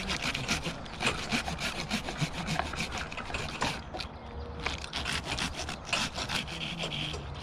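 Hand pruning saw cutting through a spruce limb, rasping in quick back-and-forth strokes with a brief pause about halfway through.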